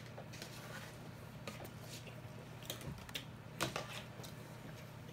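Faint scattered clicks and scrapes of a metal knife and fork on paper plates as two people cut and pick at food, over a steady low hum.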